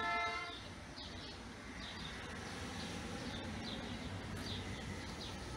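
A short horn blast with several steady tones at once, ending about half a second in, then a low steady outdoor rumble with a small bird chirping about every two-thirds of a second.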